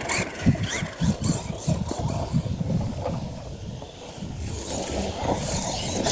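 Radio-controlled monster truck running on a dirt track: motor and tyres on loose dirt, with irregular low thumps through the first half.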